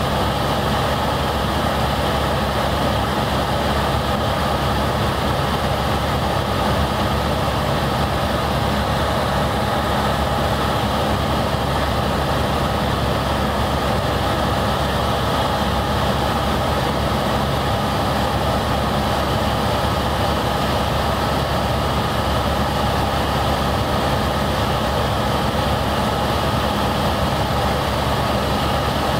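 Helicopter engine and rotor noise heard from inside the cabin in flight, a loud, unchanging drone with a low hum beneath it.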